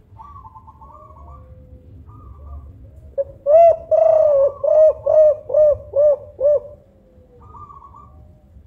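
Spotted dove (tekukur) singing its 'kuk 5' coo about three seconds in: one longer coo, then about five short, evenly spaced coos. Fainter, higher cooing is heard near the start and near the end.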